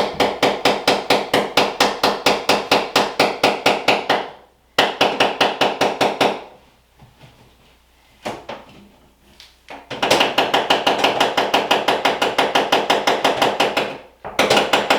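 Rapid, even hammer taps on ceramic backsplash tile, about eight strikes a second, knocking the tile loose. The tapping comes in long runs, pausing briefly about four seconds in, going mostly quiet for a few seconds in the middle, then starting again.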